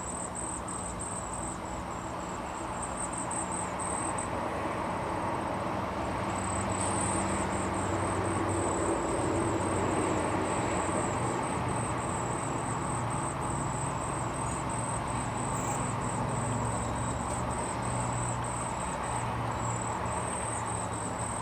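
Insects chirping in a steady, rapid high-pitched pulsing, over a low rumble that grows louder through the middle and eases off again.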